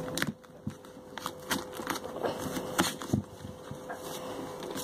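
A paper wrapper being peeled and torn open by hand: a string of irregular small crackles and ticks, over a faint steady hum.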